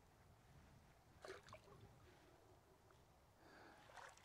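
Near silence, with two faint, brief sounds about a second in.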